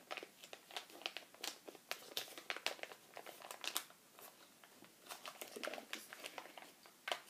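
Plastic blister packaging crinkling and crackling in faint, irregular clicks as it is worked open by hand.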